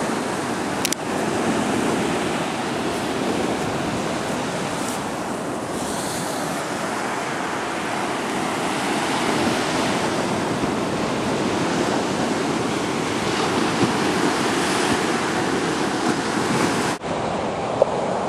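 Small waves washing steadily onto a sandy shore, an even rushing surf with no pauses. The sound briefly drops out near the end.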